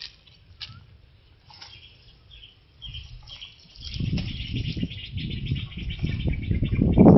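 Faint bird chirps in the first few seconds. About four seconds in, a loud, gusty low rumble of wind buffeting the microphone sets in, with a rustling hiss above it.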